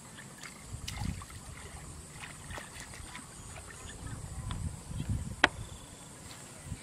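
Shallow muddy water sloshing and splashing in a flooded rice paddy as someone wades and works the mud and straw by hand, in uneven surges, with scattered small clicks and one sharp click about five and a half seconds in. A steady high insect whine runs underneath.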